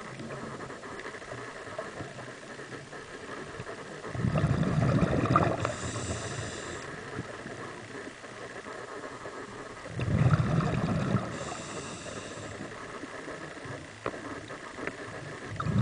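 A scuba diver breathing through a regulator underwater: two bursts of exhaled bubbles about six seconds apart, each followed by a short high hiss, and a third burst of bubbles starting near the end. A low steady hiss of water noise lies under them.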